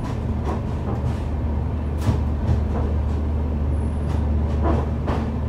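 Train running noise heard from on board a passenger train coasting through a station loop: a steady low rumble with a few sharp knocks and clunks, the strongest about two seconds in.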